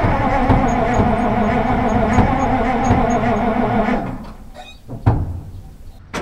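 Ural 375D truck's V8 petrol engine running steadily, then stopping abruptly about four seconds in. A single knock follows about a second later, and a sharp bang comes right at the end.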